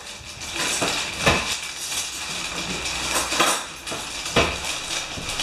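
Paper wrapping of a takeaway snack rustling and crinkling as it is opened by hand, with a few sharp knocks, the loudest about a second in.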